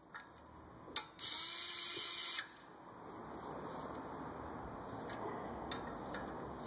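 Cordless drill-driver briefly spinning a socket to tighten a brake caliper bolt: a click, then about a second of high-pitched motor whine that cuts off. Softer, steady handling noise follows.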